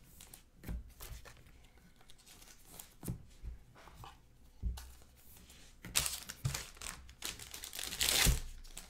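Foil trading-card pack wrappers crinkling and tearing open, with light taps and clicks of cards being handled. Two louder spells of crinkling come in the second half.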